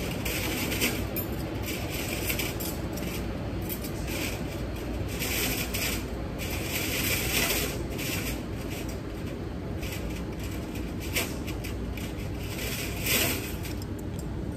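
Light, scattered clinks of stainless steel surgical instruments being handled, with some rustling, over a steady low room hum.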